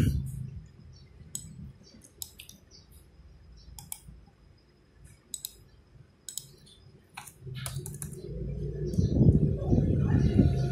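Scattered clicks and key presses on a laptop keyboard. About eight seconds in, a low rumble builds and becomes the loudest sound.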